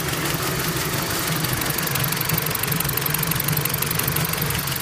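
Freshly rebuilt engine of a BMW E46 3 Series idling steadily, with a fast, even ticking over its steady hum.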